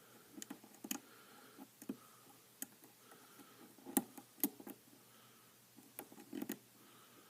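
Lock pick and tension wrench clicking faintly and irregularly inside the keyway of a challenge lock cylinder during single-pin picking, the pick lifting and setting pins. A few sharper clicks stand out about four seconds in and again near six and a half seconds.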